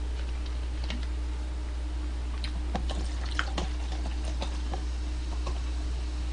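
Cola poured from a bottle into a cup, a scatter of small clicks and splashes as the soda fills and fizzes, over a steady low electrical hum.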